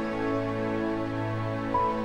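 Slow, soft background music of sustained held notes, with a new higher note coming in near the end.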